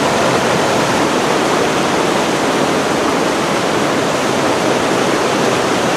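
Whitewater rushing steadily: the churning of a river rapid's hole.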